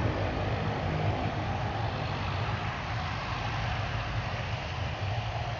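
Airplane engines running steadily as the plane starts its takeoff run, gradually fading.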